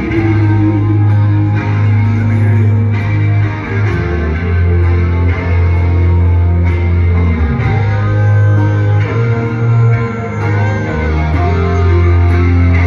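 Live rock band playing through a concert sound system, with guitars over a heavy bass.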